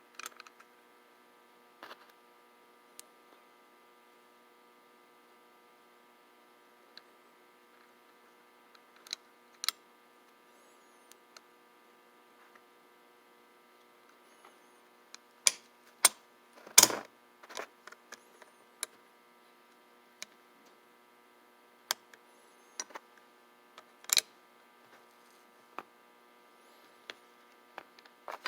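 Scattered sharp clicks and taps of small metal parts of an antique Sargent mortise lock being handled and fitted back into the lock case, loudest in a cluster about halfway through, over a steady electrical hum.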